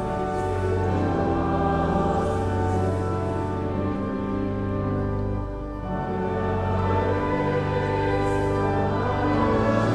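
Pipe organ playing sustained chords over a deep held bass, with choral singing, easing briefly about five and a half seconds in before the chords resume.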